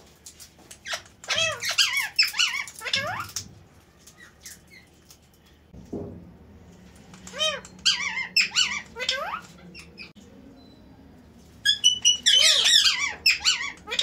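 Rose-ringed parakeets giving squeaky calls that rise and fall in pitch. They come in three bouts of rapid calls, each lasting a second or two, and there is a single soft knock about halfway through.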